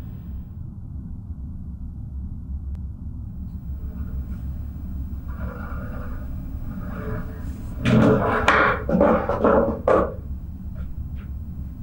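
A wooden chair scraped and knocked across a tiled floor in several short strokes, loudest near the end, over a steady low rumble of room noise.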